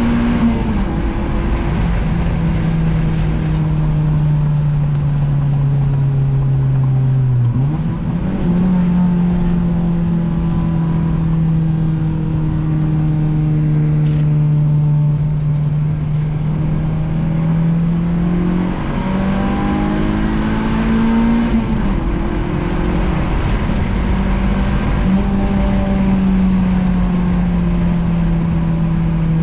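Car engine pulling through the gears while driving. Its note drops about a second in, sags slowly, then jumps up sharply about eight seconds in. It climbs again around twenty seconds and drops at a shift a little later, over a steady rumble of road noise.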